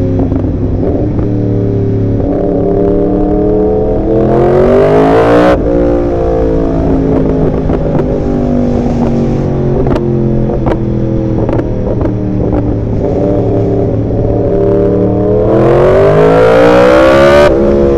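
Yamaha R1 sportbike's inline-four engine heard from the saddle under hard acceleration. The revs climb for about three seconds and cut off sharply about five seconds in, then ease lower for a while, with a few short pops. Near the end a second pull rises and cuts off sharply the same way.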